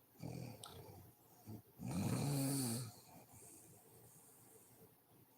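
A sleeping woman snoring: a softer rasping breath, then a loud pitched snore about two seconds in lasting about a second, followed by a quieter stretch of breathing.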